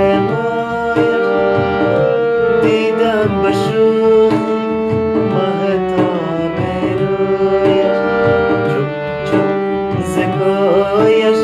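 Afghan majlisi song: a man's voice holds a long wordless melodic line between verses, over sustained accompanying tones and a steady tabla beat.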